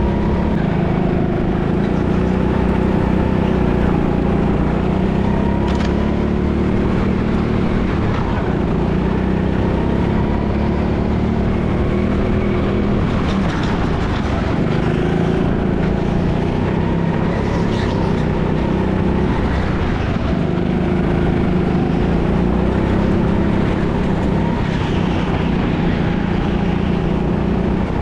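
Go-kart engine running continuously under throttle, heard from the driver's seat, its note rising and falling as the kart laps the track.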